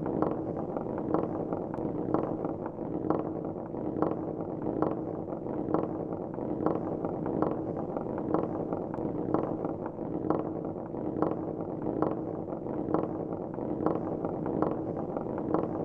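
Marbles rolling along a marble-run track, a steady rumble with a sharp click about once a second.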